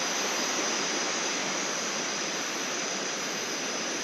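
Steady rush of flowing river water, with a thin, steady high-pitched hum over it.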